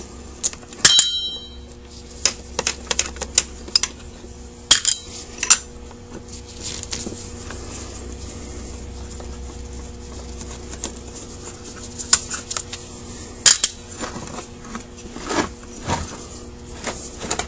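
Scattered clicks and clinks of a screwdriver and small metal parts against a Carter WA-1 carburetor body as it is taken apart, with one bright ringing clink about a second in.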